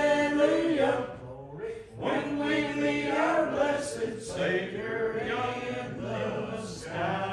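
Church congregation singing a gospel hymn together in unison. A long held note ends about a second in, and the singing picks up again after a short break.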